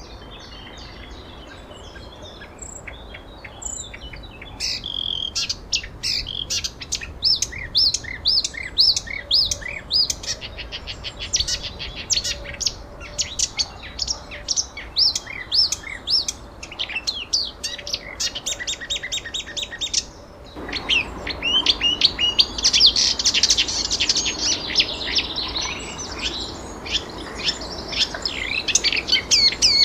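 Several songbirds chirping and singing, quick repeated notes that come thicker a few seconds in. About two-thirds of the way through, the sound changes abruptly to a fuller chorus of birds over a louder background.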